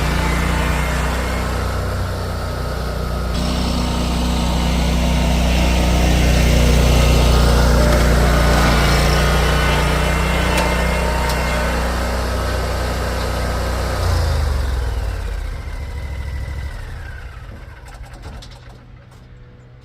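Lawn mower engine running steadily, then shut off about 14 seconds in and winding down with a falling whine.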